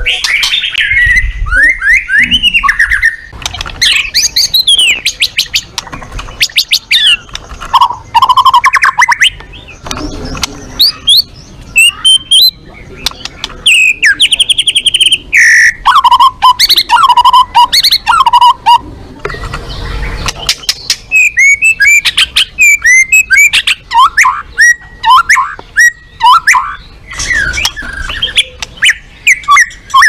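White-rumped shama singing a loud, varied song: phrase after phrase of sliding whistles, rapid runs of notes and chattering trills with short pauses between them.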